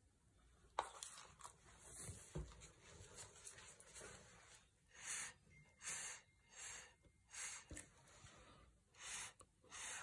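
Short puffs of breath blown through a straw onto wet acrylic paint, about six of them in the second half, each a soft hiss. There is a sharp tap about a second in.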